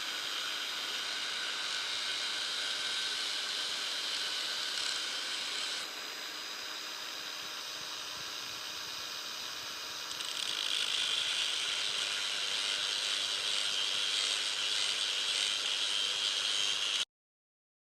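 A small power tool runs continuously with a rattly mechanical sound. It gets quieter about six seconds in and louder again about ten seconds in, then cuts off sharply near the end.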